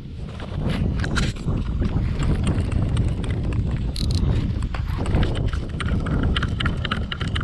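Baitcasting reel being cranked hard to reel in a hooked fish: a quick run of rattling reel clicks over heavy wind rumble and rod handling on the microphone.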